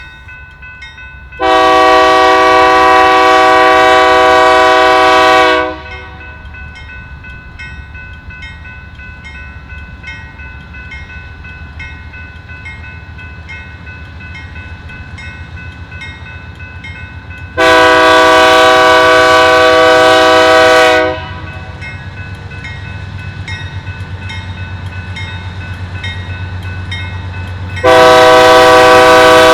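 Diesel locomotive air horn of a BNSF manifest led by a GE Dash 9-44CW sounding a crossing signal: two long chord blasts of about four seconds each, then a third, louder blast begins near the end. Between the blasts the locomotives' diesel engines rumble, growing louder as the train approaches.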